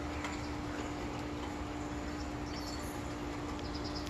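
Faint bird chirps, short high notes repeated quickly in two brief bursts, one about two thirds through and one near the end, over a steady low hum and background rumble.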